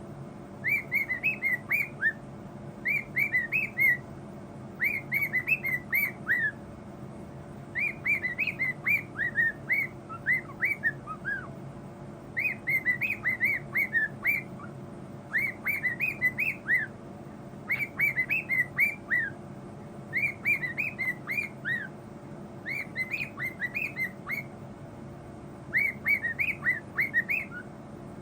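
A bird chirping in quick repeated phrases of short, falling whistled notes, a burst of about half a dozen notes every two seconds or so.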